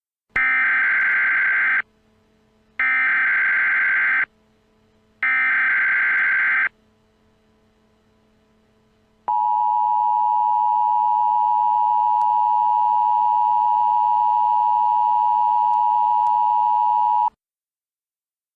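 Three Emergency Alert System SAME header bursts, each a buzzing data screech of about a second and a half, then after a pause the EAS two-tone attention signal, a steady dual tone held for about eight seconds, announcing that an emergency message follows.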